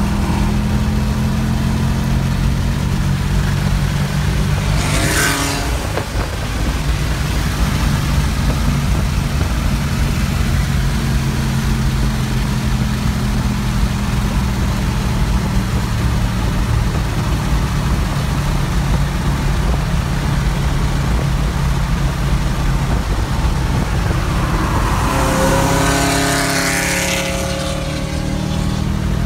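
Ford Mustang 5.0 V8 running at speed, heard from inside the cabin: a steady engine drone over road and wind noise. About five seconds in and again near the end, another car swells past, the second time with gliding engine tones.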